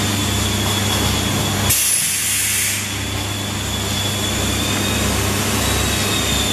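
High-frequency (RF) plastic welding machine running with a steady electrical hum. Almost two seconds in, a sudden hiss of released air lasts about a second while the hum briefly drops away.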